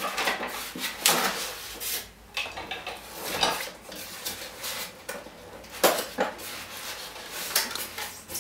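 Lamp parts being handled in a white foam packaging tray: irregular scraping and rubbing with light clattering knocks as pieces are moved about and lifted out.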